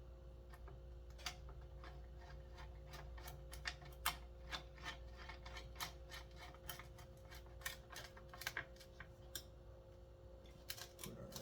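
Irregular small clicks and taps of metal and plastic parts being handled as the recoil starter is fitted back onto a McCulloch 1-53 chainsaw, with its dogs being lined up. A faint steady hum runs underneath.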